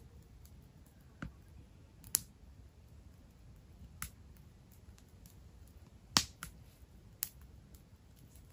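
Wood campfire in a metal fire ring crackling, with about six sharp, separate pops, the loudest about two and six seconds in.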